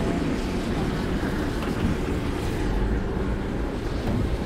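Steady low rumble and hiss of a large truck fire burning, heard through wind buffeting on a phone microphone.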